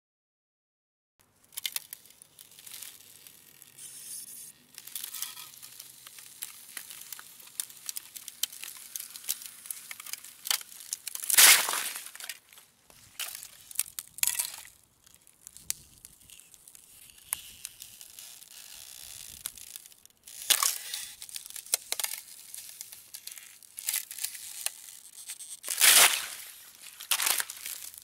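Ice cracking slowly: a long run of small crackles and snaps, broken by a few sharp, louder cracks, the loudest about eleven seconds in and another near the end. It starts after a moment of silence.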